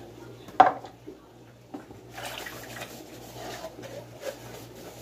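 Dishes being washed by hand at a kitchen sink: a sharp knock of a dish against the sink about half a second in, then water splashing and scrubbing with a few light knocks.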